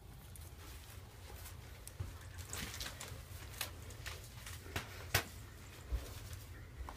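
Faint low rumble with a few soft, scattered knocks and clicks.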